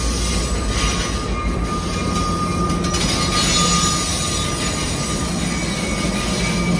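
A train rolling past with a steady rumble of wheels on the rails and a thin, high steel-wheel squeal running through it.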